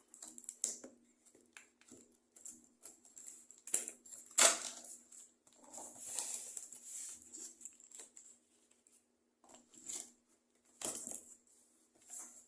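Cardboard box and packaging being opened and handled: scattered rustles, scrapes and sharp knocks, loudest about four seconds in and again about eleven seconds in.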